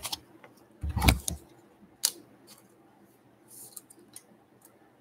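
Trading cards being handled on a desk: a soft thump about a second in, a sharp click near two seconds, then light ticks and a brief rustle.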